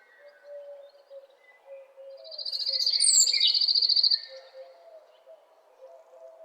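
A small songbird sings a rapid, high trill lasting about two seconds, swelling in loudness before cutting off, with a few sharp higher notes around it. Faint low wavering notes from other birds continue underneath.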